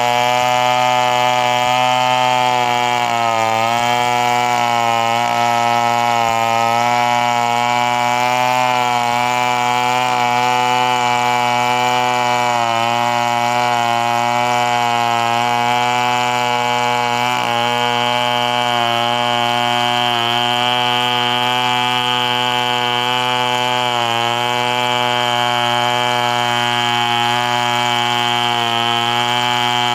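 Gasoline chainsaw running at high revs while cutting wood, its pitch dipping briefly every few seconds as the chain bogs under load.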